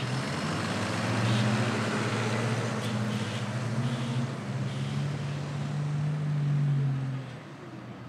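A motor vehicle's engine running close by with a steady low hum that rises slightly in pitch, then drops away about seven seconds in.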